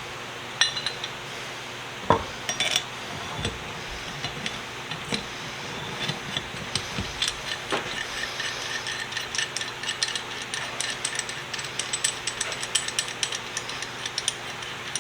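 Metal knocks and clicks of a restored pipe wrench being handled. A few sharp knocks come early, then from about six seconds a long run of small, quick metallic clicks.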